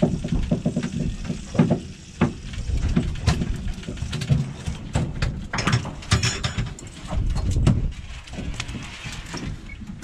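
Irregular knocks and clatter on a fishing boat's aluminium deck over a steady low rumble.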